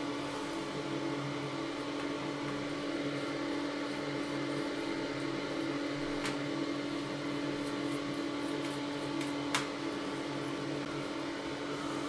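Steady mechanical hum over a hiss, with two short clicks, a faint one about six seconds in and a sharper one about three seconds later.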